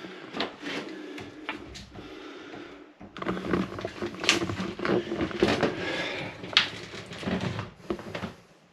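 Wooden spoked ship's wheel being turned by hand in a boat's wheelhouse: a run of knocks and clicks from the wheel and its steering gear. The knocks get denser and louder about three seconds in.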